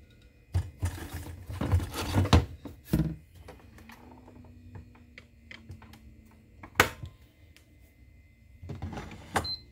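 Stainless inner pot of a Cuckoo IH pressure rice cooker set down into the cooker body with a clatter of knocks and scraping, then the lid brought down and shut with one sharp click, followed by a few more handling knocks near the end.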